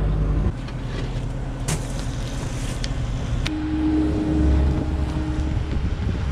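A motor running steadily, with a few sharp clicks in the first half.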